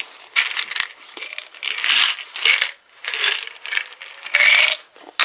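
Feed and supplement bags rustling and crinkling as they are handled, in a string of about six short bursts.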